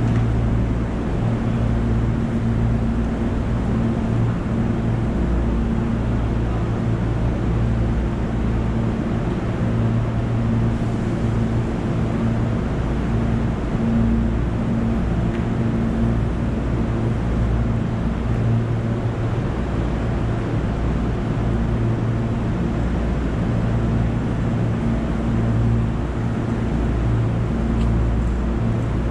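Steady low hum of a Hankyu electric train standing still, its onboard equipment running with a constant droning pitch.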